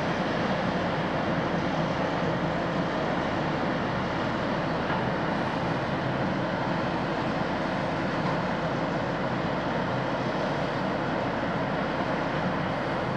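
Steady drone of a general cargo ship's engine as the vessel moves slowly through a harbour lock, a constant hum over an even rushing noise.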